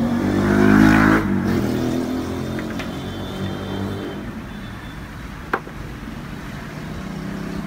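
Echo and reverb tail of a man's voice saying "lô" through the Soundcraft PMX-806D powered mixer's built-in reverb and echo effects. The repeats smear together and die away over several seconds, and there is a single sharp click about five and a half seconds in.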